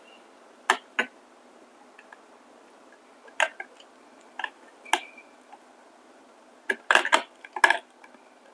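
A 19 mm open-end steel wrench clinking against the nut of a coffee grinder's panel-mount start button as the nut is worked loose: a scatter of short, separate metal clicks, with a quicker cluster of several near the end.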